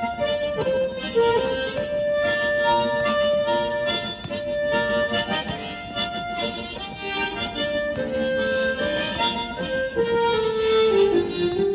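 Harmonica playing a melody of held notes with chords sounding beneath, with no break.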